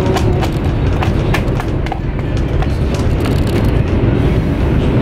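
Steady low rumble of a high-speed train heard from inside the carriage, with scattered sharp clicks of chopsticks against plastic salad tubs.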